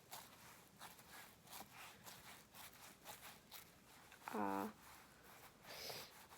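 Slime with Model Magic clay worked into it being kneaded by hand: faint, quick sticky clicks and squishes. A short hum of voice about four seconds in.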